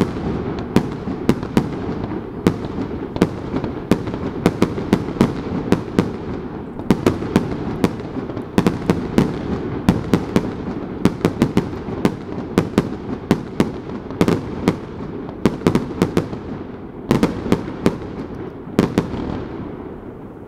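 Fireworks display: a rapid, irregular string of sharp bangs from aerial shells bursting, often several a second, over a continuous low rumble.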